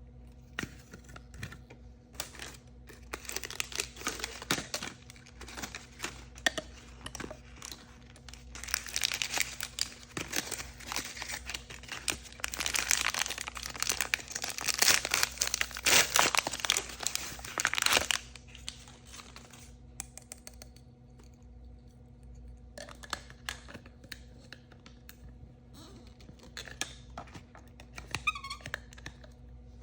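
Surprise-toy packaging being crinkled and torn open by hand, with scattered crackles at first, a dense, louder run of crinkling and tearing from about nine to eighteen seconds in, then lighter scattered handling sounds.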